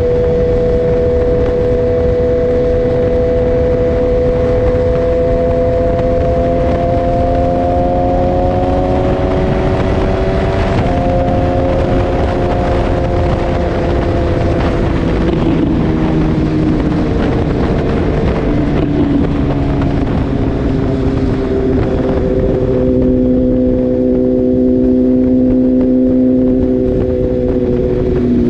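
2018 BMW S1000R inline-four with a full Akrapovic exhaust running at steady highway cruising speed, over constant wind and road noise. Its note creeps up a little, dips about ten seconds in, eases down gradually, then holds steady again.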